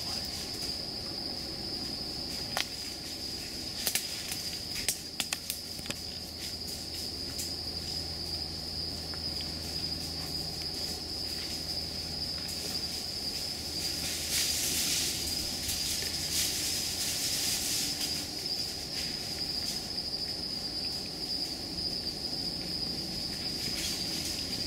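Steady, high-pitched drone of insects trilling in the woods. A few sharp clicks come in the first several seconds, and leaves and brush rustle about midway as someone pushes through the undergrowth.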